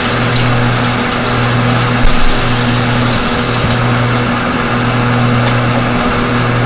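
Stove exhaust fan running: a steady, loud rushing noise over a low hum. A brighter hiss swells for a second or two about two seconds in.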